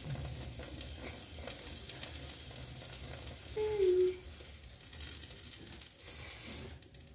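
Aloo paratha frying on a hot griddle, a steady sizzle that stops shortly before the end as the flatbread is lifted off the pan. A brief voice sound about halfway through.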